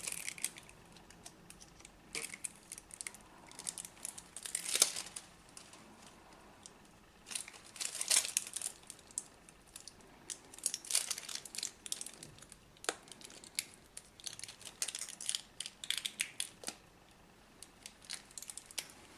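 Irregular crinkling and rustling from silicone self-fusing tape being handled, stretched and wrapped, coming in short spells with a few sharp clicks among them.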